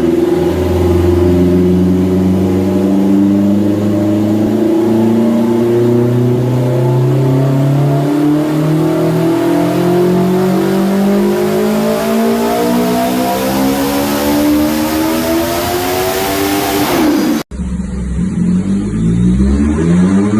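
Motorcycle engine on a dynamometer doing a long pull, its revs climbing slowly and steadily for about seventeen seconds before the throttle closes and the pitch drops. After an abrupt cut, another dyno run starts with the revs rising more quickly.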